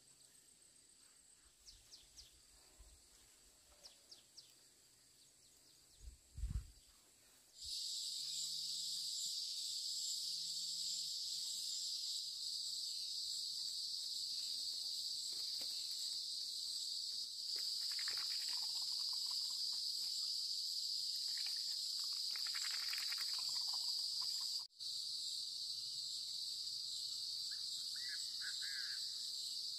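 Steady, high-pitched insect chorus that starts abruptly about eight seconds in and drops out for a moment about 25 seconds in. Before it, faint ticks and one low thump about six seconds in.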